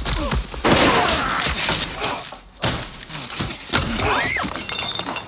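Fight sound effects: blows and glass bottles smashing and shattering as a man is thrown onto a table. The crashing comes in two stretches, with a brief lull about two seconds in.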